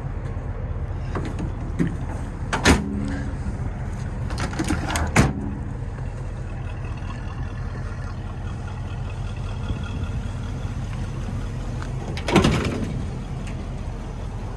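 1980 International Scout II engine running steadily with a low hum, broken by three sharp clunks: about two and a half seconds in, about five seconds in, and a louder one about twelve seconds in.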